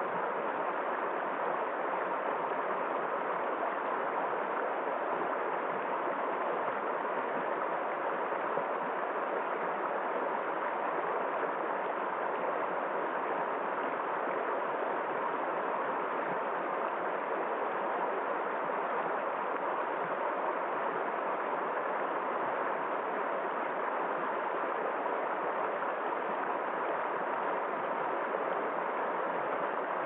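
Shallow rocky river running over stones in small rapids: a steady, unbroken rush of water.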